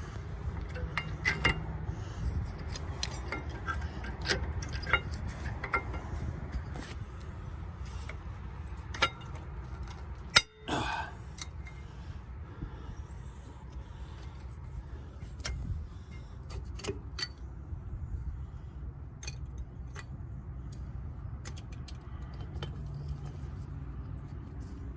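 Scattered light metallic clinks and taps of hand tools and brake parts being handled during a rear disc brake pad change, over a steady low rumble.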